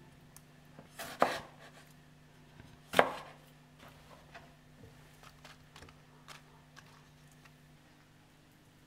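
Kitchen food preparation on a wooden chopping board: sharp knocks about a second in and again about three seconds in, then lighter scattered taps and clicks, over a faint steady hum.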